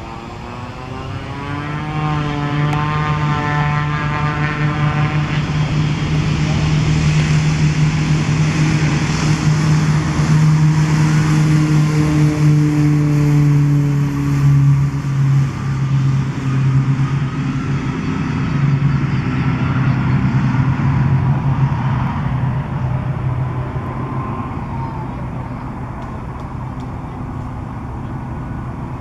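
Piper Malibu single-engine propeller plane taking off under full power: a steady engine and propeller drone that builds over the first seconds and is loudest about halfway through. It then slowly fades as the plane climbs away.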